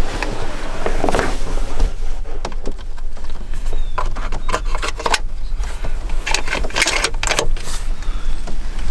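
Clothing rustling and gear clicking and knocking as a rifle is handled in a cramped box blind, in irregular clusters over a steady low rumble.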